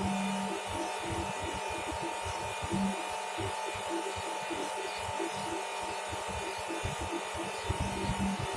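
A steady electric buzz with a constant whine from a small motor, over irregular low rumbling and knocking.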